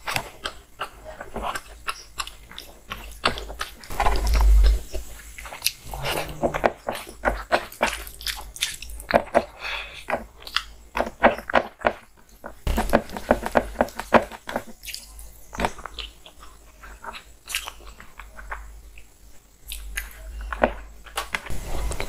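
Close-miked eating sounds: chewing and lip smacking on rice and hilsa fish curry, with wet squishing as fingers mix rice on the plate. A low bump about four seconds in.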